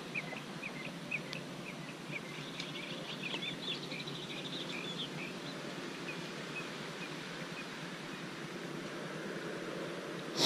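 Small birds chirping over and over, with a short trill among the chirps, for about the first five seconds, over a steady rush of wind on the microphone.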